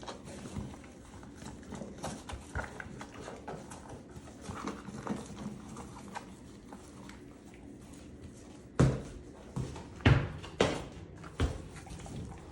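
A cow's hooves clopping on a hard floor as it moves about, with soft scattered steps and then four loud knocks in the last few seconds.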